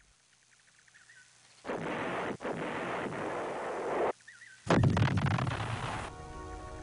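Artillery fire: two heavy booms, one about a second and a half in and one just before five seconds, each starting suddenly and trailing off in a long rumble. Music comes in near the end.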